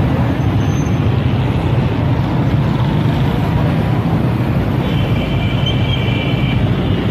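Petrol station ambience: vehicle engines running steadily with a low hum under a noisy wash. A brief high-pitched tone comes in about five seconds in.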